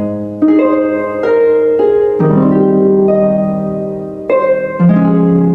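Instrumental music: a slow melody of plucked, ringing notes over held low notes.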